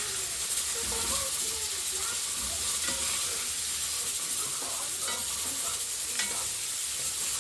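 Flour-coated chicken breast deep-frying in a pot of hot oil, a steady sizzle, with a couple of light clicks about five and six seconds in as the pieces are turned.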